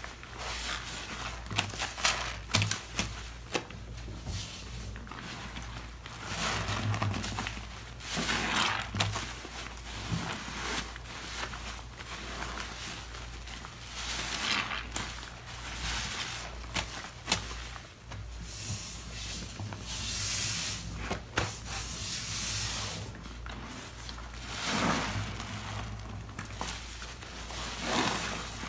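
Wet, soap-soaked waffle-textured heart sponge squeezed and wrung by rubber-gloved hands in a basin of lather: squelching squeezes at irregular intervals, with crackling foam.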